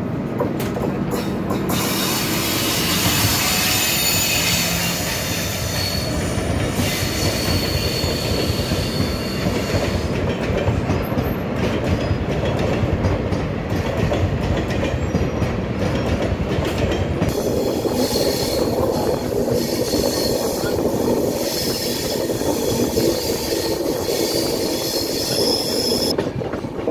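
Two passenger trains passing each other at speed on adjacent tracks, heard from an open coach doorway: a steady rushing clatter of steel wheels on rail joints. Thin high wheel squeals come in a few seconds in and again through the second half.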